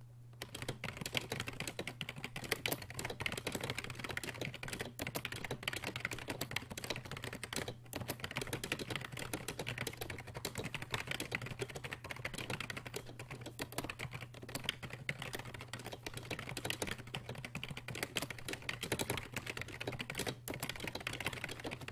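Continuous typing on an NMB RT6656TW rubber dome keyboard: a dense, even run of key presses, broken by brief pauses about eight seconds in and again near the end. A steady low hum runs underneath.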